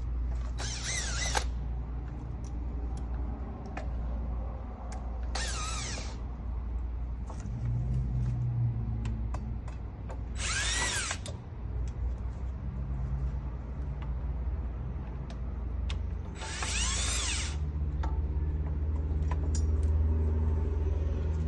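Key-cutting machine's cutter wheel grinding into a key blank in four short high-pitched passes, each about a second long and a few seconds apart, over a steady low hum.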